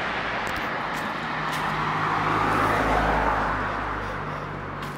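Road traffic on the main road alongside: a car passes, swelling to its loudest about halfway through and then fading.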